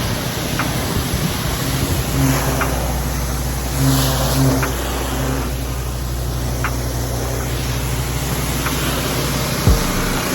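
Pressure washer engine running steadily under the hiss of the spray, with a short knock near the end.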